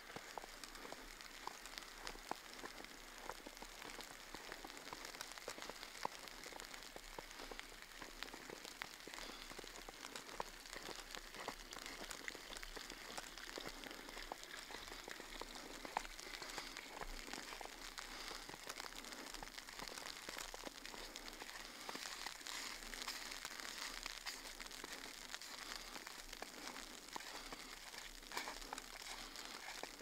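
Falling wet snow pattering faintly and steadily on surfaces, a dense scatter of small irregular ticks.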